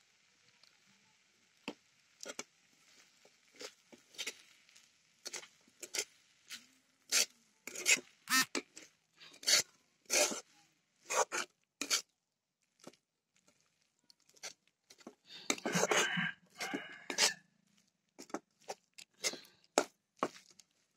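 Steel spatula scraping and knocking against a steel kadhai as vegetables are stirred, in short, irregular strokes, with a longer run of scraping about three-quarters of the way through.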